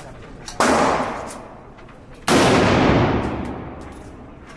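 Two gunshots about a second and a half apart, each with a long echoing decay; the second rings on longer.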